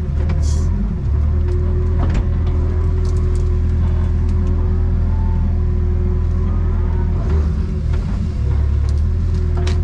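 Excavator's diesel engine running steadily under working load, a deep drone with a steady hum above it, broken by a few short knocks.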